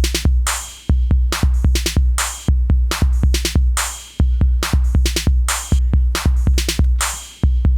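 Transformation-belt standby loop: a drum-machine beat of deep bass kicks and sharp snare-like hits, repeating about every second and a half while the belt waits to be activated.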